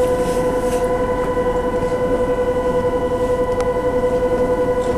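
Railway station departure buzzer sounding one steady, unchanging mid-pitched tone, the signal that the train doors are about to close and the train will depart.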